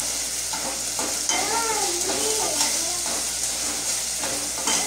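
Diced onion sizzling as it fries in oil in a stainless steel saucepan, with a spoon stirring and clicking against the pot.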